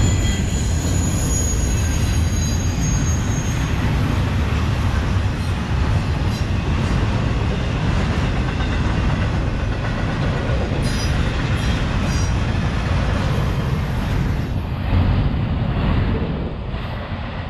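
Norfolk Southern double-stack intermodal freight train rolling past: a steady low rumble of wheels on rail, with a thin high wheel squeal in the first few seconds. Occasional clicks of wheels over rail joints come later, and the sound eases off a little near the end.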